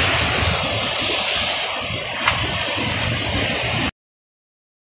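River water rushing steadily, with a low irregular rumble underneath and one short click about two seconds in; it cuts off abruptly near the end.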